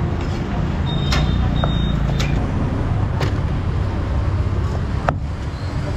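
Cleaver chopping a roasted bird on a thick wooden chopping block: four sharp knocks spaced a second or two apart, the loudest near the end, over a steady low rumble of street traffic.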